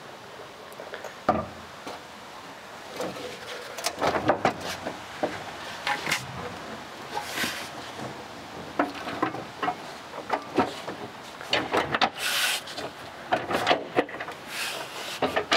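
A plastic truck front bumper being pushed onto its mounting bolts: irregular clunks, knocks and clicks of plastic against metal, with a scrape about twelve seconds in.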